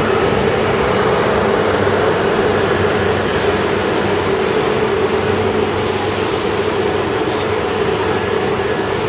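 Coal train wagons rolling past on the rails: a loud, steady rumble of wheels and wagons, with a brief burst of higher hiss about six seconds in.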